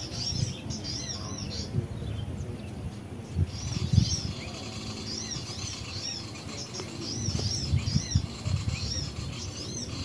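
A bird-lure recording of mixed small-bird calls playing through a speaker: rapid, high arched chirps in repeated bursts with short gaps between them. Low thumps and rumble run underneath, the loudest about four seconds in.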